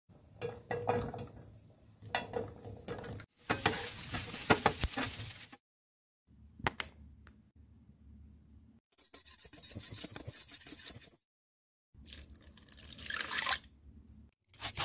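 A whisk mixing in a bowl in several short clips broken by brief silent gaps. It stirs egg-coated bread cubes with wet sloshing and clinks, then whisks flour into beaten egg, with fast even beating strokes near the end.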